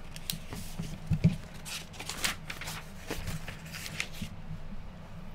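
Rustling and light clicks of small objects being handled at a desk close to the microphone, stopping about four seconds in.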